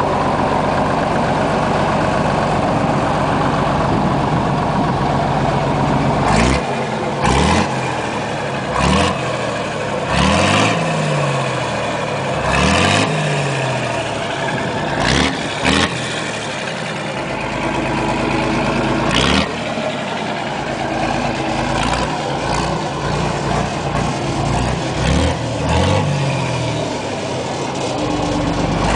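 1962 Mack H-67 truck's engine running just after its first start, steady for the first few seconds, then revved in a dozen or so short throttle blips, each rising and falling in pitch.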